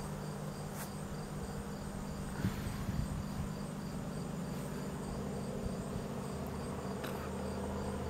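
A swarm of honey bees buzzing: a steady, even drone from many bees clustered together, with a couple of faint ticks.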